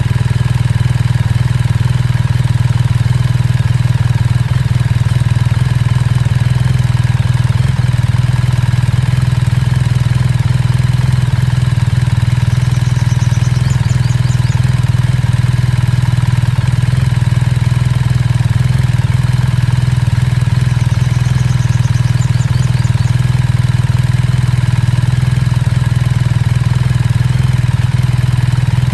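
BMW R1300 GS boxer-twin engine idling steadily through a Termignoni slip-on exhaust.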